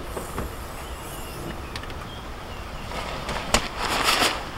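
A sharp click about three and a half seconds in, then a second or so of rustling and scraping as a tent bag is pulled out of a Jeep's open cargo area.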